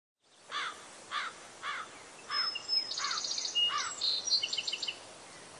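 Birds calling in open-air ambience. A run of about six repeated arched call notes, a little under two a second, is joined near the middle by higher chirps, whistles and trills. The calls stop about a second before the end, leaving a faint outdoor hiss.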